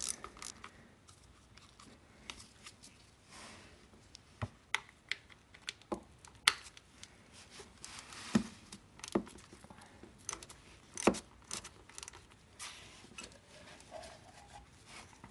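Faint, irregular clicks and taps of a socket ratchet on the distributor cap's bolts and of the plastic distributor cap being handled and worked loose.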